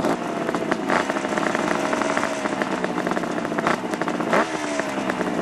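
The air-cooled three-cylinder two-stroke engine of a freshly rebuilt 1975 Kawasaki H1 500 motorcycle running. Its pitch sags slowly, then rises sharply with a blip of throttle about four seconds in.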